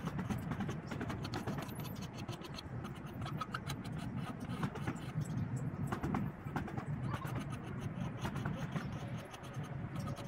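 Sandpaper rubbed by hand over a workpiece, a dense run of short scratching strokes.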